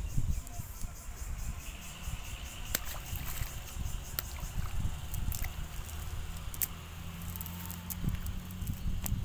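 A wet cast net is being handled as fish are picked out of it: soft rustling of the netting with a few sharp clicks, over a low steady hum.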